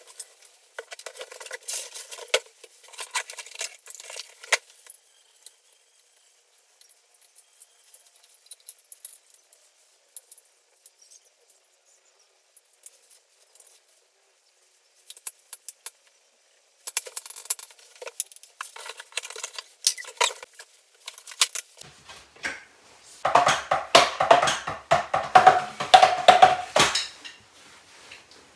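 Clatter and rustle of cardboard boxes being handled, then scattered clicks of metal drum hardware as a kick pedal is fitted to the kit. Near the end comes the loudest part, a dense run of taps and thuds.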